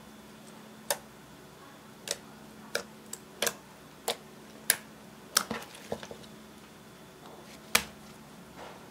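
Glittery clear slime being pressed and poked by fingers, giving a string of sharp, irregular pops and clicks as air pockets in it burst, about a dozen over several seconds.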